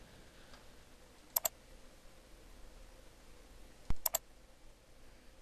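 Computer mouse clicking twice, each click a quick pair of snaps, about a second and a half in and again near four seconds, over faint hiss.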